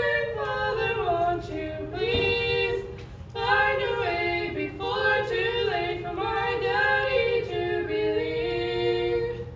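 Two female voices singing a cappella in two-part harmony, in phrases with short breaths between them.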